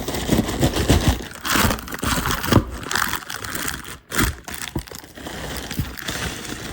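Shipping packaging being handled and opened: crinkling and rustling of wrapping with irregular knocks and bumps.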